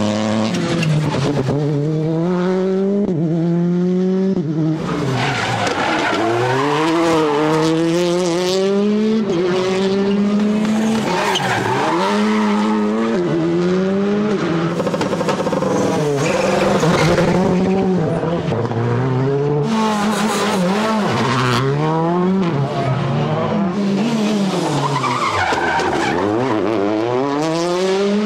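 Rally cars driven flat out on a special stage. Their engines rev up and drop back again and again through gear changes and braking for corners, with tyres squealing.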